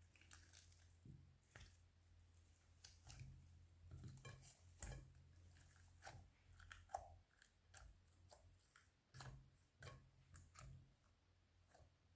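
Slime being pressed and worked by hand, giving quiet, irregular crackles and small clicky pops.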